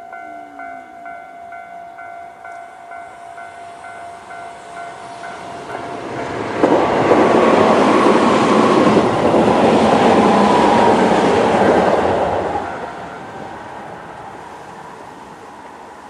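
An electronic level-crossing alarm rings in a repeating pattern. About six and a half seconds in, two Tobu 20400-series electric trains pass each other through the crossing with a loud, steady running noise for about six seconds. The noise fades away and the alarm stops.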